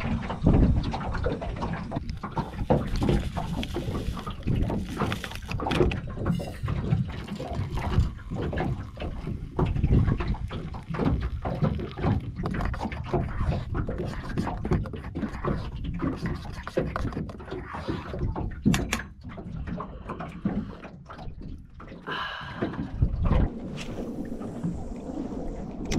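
Knocks and clatter of a small pot and its lid handled over a portable gas stove, with hot water poured into a mug.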